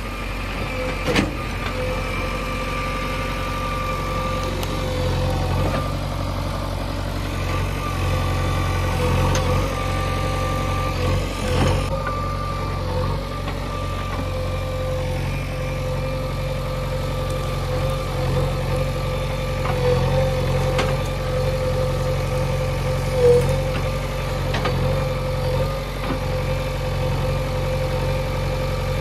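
JCB 3DX backhoe loader's diesel engine running steadily under load while the backhoe arm works through brush, with a steady whine over the engine and a few sharp knocks.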